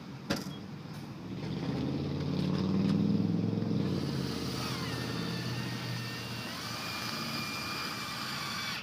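A motor vehicle engine running, swelling to its loudest about three seconds in and then slowly fading, with a single click just before it.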